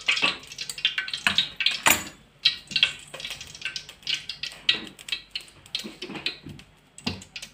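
Cooking oil heating in an aluminium kadai on a gas stove, crackling and spitting with irregular sharp pops, several a second, as it comes up to temperature.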